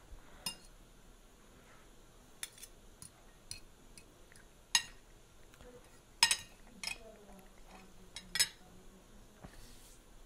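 Metal fork and spoon clinking and scraping against a plate of spaghetti: about a dozen sharp, irregular clinks, the loudest a little after six seconds in.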